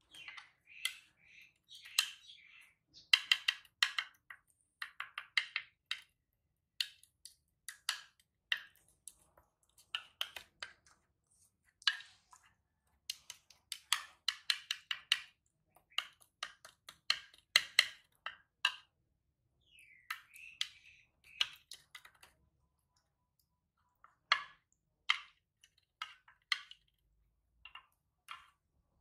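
Baby monkey giving short, high squeaks and chirps in irregular runs, mixed with light clicks and clinks of a spoon in a ceramic bowl.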